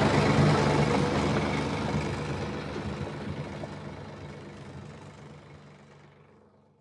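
A tractor engine running steadily with a low hum. The sound fades out gradually to silence near the end.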